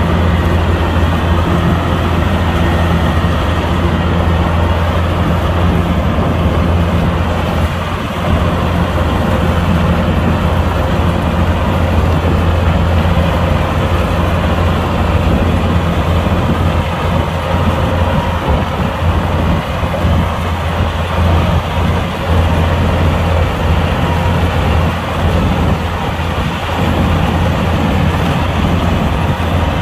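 Kubota combine harvester's diesel engine running steadily while harvesting, a loud constant low hum under the noise of the machine.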